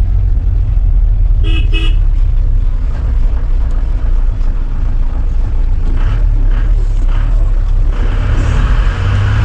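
Low, steady engine and road rumble heard from inside a crowded shared taxi, with two short toots of a car horn about one and a half seconds in.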